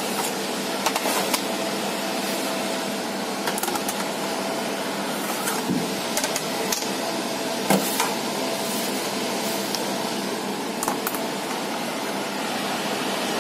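A steady whirring machine hum runs throughout, with scattered light clicks and knocks of metal baking trays being moved on the oven racks and one louder knock about two-thirds through.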